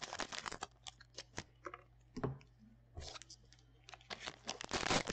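Foil wrapper of a Panini Prizm trading-card pack crinkling and crackling in the hands. There are two dense bouts, the first at the start and the second from about three seconds in, with a few scattered clicks between them.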